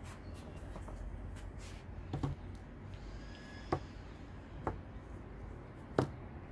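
Small stones set down one at a time on a paper stencil lying on a painting board: about four short, sharp knocks a second or so apart, the last the loudest, over a steady low hum.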